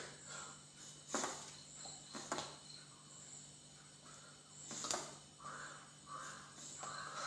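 Faint insect chirring with a steady low hum, broken by a few sharp knocks.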